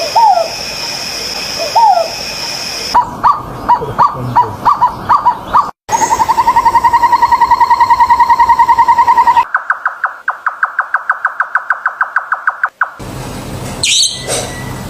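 Calls of several different birds spliced one after another with abrupt cuts. First come two rising-and-falling whistles, then a string of short notes, then a fast, even trill lasting about three and a half seconds, then a rapid run of clipped notes. Near the end there are a few sharp high calls.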